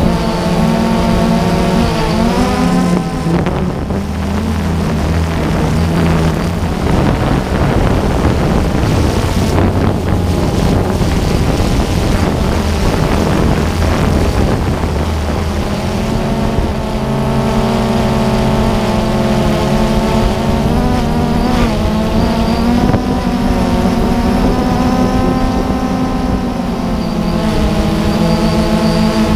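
Multirotor drone's motors and propellers buzzing steadily, close up from the camera on board; the pitch of the whine bends up and down as the throttle changes.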